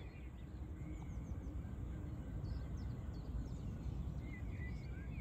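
Faint, scattered bird chirps and short calls over a steady low background rumble.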